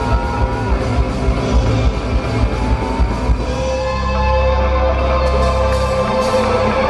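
Live rock band playing: electric guitars over a steady drum beat. About four seconds in the drums drop out and a low chord with a higher note is held, before the beat comes back near the end.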